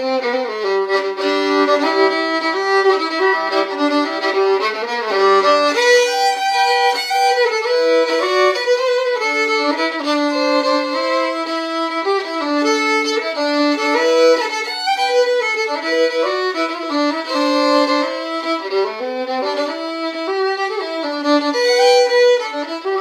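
A fiddle played solo with the bow: a continuous tune whose notes change several times a second.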